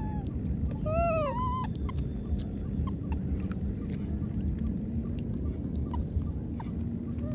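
A few short animal calls, each rising then falling in pitch, come just at the start and again about a second in. A steady low rumble runs underneath.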